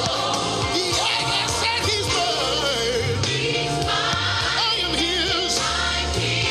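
Music: a praise song, with voices singing over sustained bass notes.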